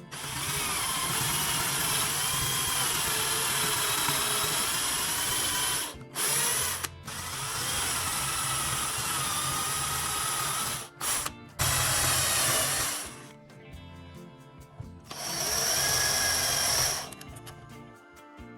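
A power tool's motor running in several bursts of a few seconds each, its whine wavering under load, with background music beneath.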